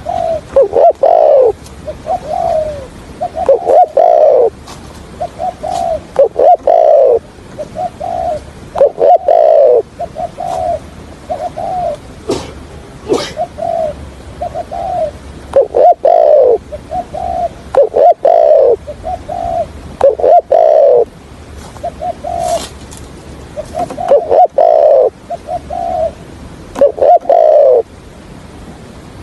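Spotted dove cooing: short runs of low coos, some falling in pitch, repeated every second or two, including the stuttering 'gù' coos used as a decoy call.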